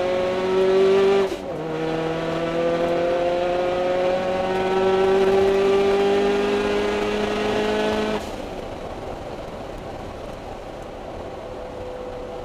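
Scion FR-S race car's flat-four engine pulling hard under full throttle, heard from inside the cabin, its pitch rising. It upshifts about a second and a half in, then climbs slowly through the next gear. About eight seconds in the engine sound drops off abruptly to a quieter, steady note.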